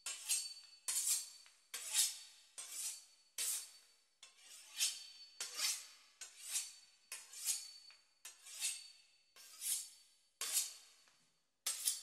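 A knife sawing back and forth through the crisp puff-pastry crust of a beef Wellington, a steady run of crunchy rasping strokes about one and a half a second.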